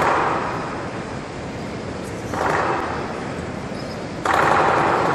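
Crowd noise from a large audience in a big echoing hall, swelling once and then rising sharply near the end.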